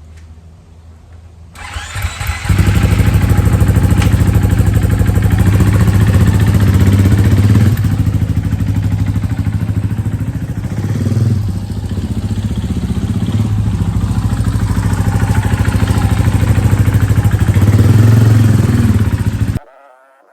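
KTM EXC enduro motorcycle engine starting up about two seconds in, then running loudly with the revs dipping and rising, until it stops abruptly near the end.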